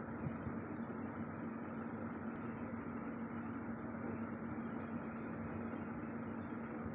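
Steady machine hum and hiss with one constant low tone, unchanging throughout.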